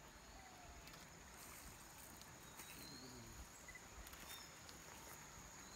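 Near silence: faint outdoor background hiss with a thin steady high tone and a few faint short chirps.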